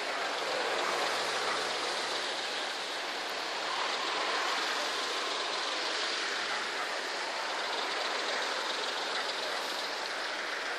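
A steady, even rushing hiss of open-air background noise, with no distinct events in it.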